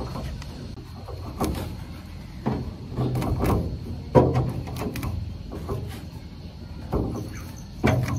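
A series of irregular knocks and thuds, about one every second or so, each with a short ringing tail.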